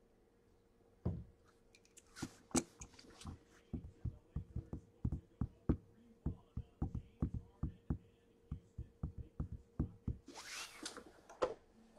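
A run of light, uneven knocks and taps, roughly two a second, starting about a second in, then a brief hiss-like rustle near the end.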